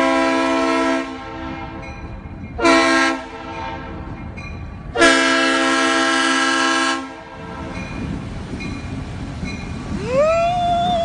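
Diesel freight locomotive's multi-chime air horn sounding a grade-crossing warning: a long blast, a short one and another long one, followed by the low rumble of the train nearing the crossing.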